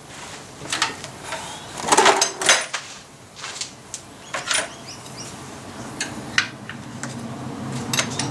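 Hand tools being handled: irregular sharp knocks and metallic clinks, about a dozen, the loudest a pair around two seconds in.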